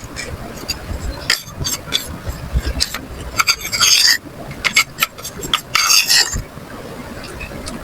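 White slate pencils crunching and cracking: a string of sharp cracks, with two longer gritty crunches about four and six seconds in.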